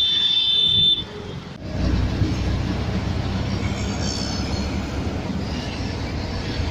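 A brief high steady tone fades out about a second in. Then comes the steady low rumble of a moving city bus heard from inside: engine and road noise with a hiss over it.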